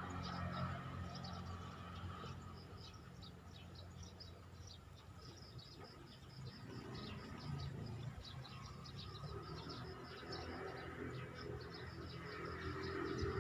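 A steady chorus of many short, high chirps from birds and insects, over a low background hum.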